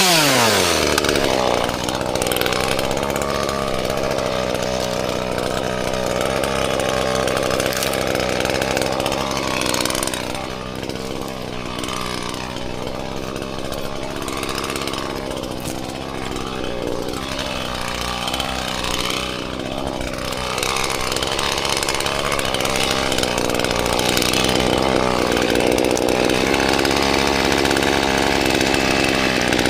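Two-stroke chainsaw dropping from full revs at the start, idling steadily between cuts, then revving up again right at the end.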